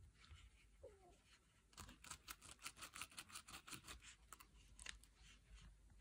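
Faint handling noise from a small round plastic brush attachment of a Kärcher SV7 vacuum cleaner being fitted and turned in the hands: a run of quick clicks and scratches, about five a second, from about two seconds in to about five seconds in.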